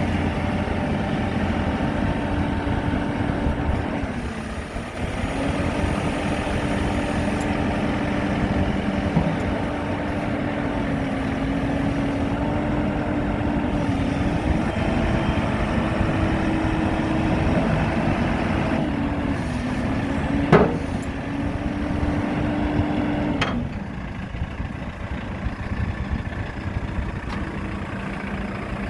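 JCB 3CX backhoe loader's diesel engine running at raised revs, dipping briefly about four seconds in, then dropping back to a lower, quieter idle near the end. A single sharp knock sounds about two-thirds of the way through.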